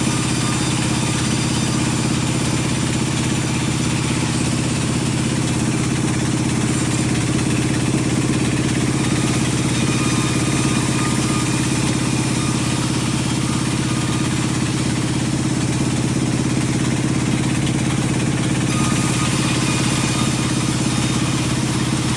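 Sawmill machinery running steadily, a constant engine-like hum with no change in level.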